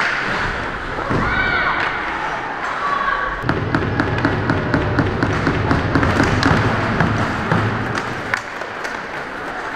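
Rhythmic thumping, about four beats a second for several seconds, over the voices of a crowd.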